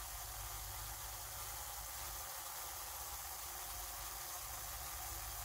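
Steady hiss of a compressed-air aerosol generator at about 3 atmospheres, blowing Varidol mist through a nozzle into a beehive during a timed treatment against varroa mites.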